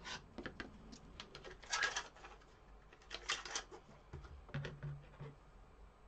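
Covered craft wire being handled and bent by hand: irregular scratchy clicks and rustles as the wire is pulled and worked, the loudest about two and three seconds in.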